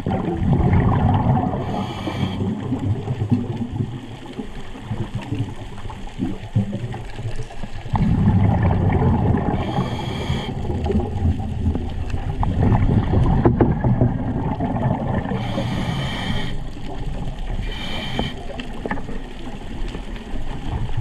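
Scuba diver breathing through a regulator underwater: short hissing inhalations, each followed by a long spell of bubbling from the exhaled air.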